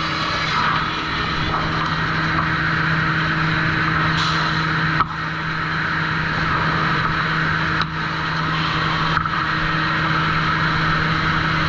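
Sawmill machinery running steadily: a constant motor hum under a broad mechanical hiss, with a few brief knocks about halfway through.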